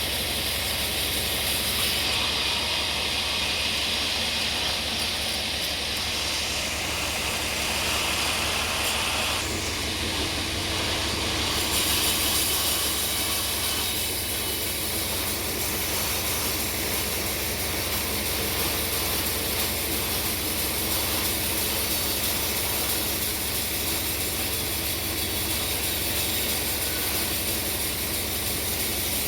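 Sawmill machinery running steadily: a constant low motor hum under a broad hiss, with a brighter, higher hiss from about two seconds in that eases off near ten seconds.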